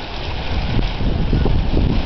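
Wind buffeting the microphone in irregular low rumbles, over a steady hiss of water spraying from a garden hose onto the leaves and the nest.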